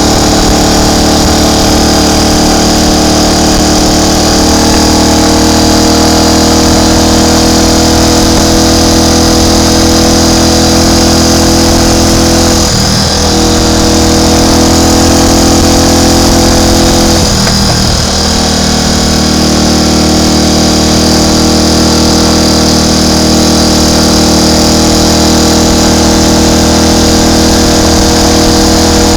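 Triumph Tiger Cub's single-cylinder four-stroke engine running as the motorcycle is ridden, a loud, steady engine note. About 13 and 17 seconds in, the note briefly breaks and comes back at a different pitch.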